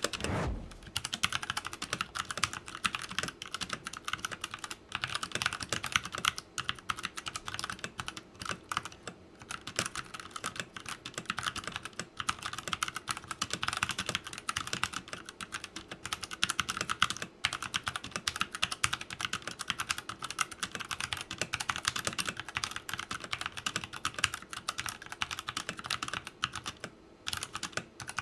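Continuous typing on a Redragon K530 60% mechanical keyboard with brown tactile switches, set directly on the desk without a desk mat: a steady stream of rapid keystroke clicks and clacks.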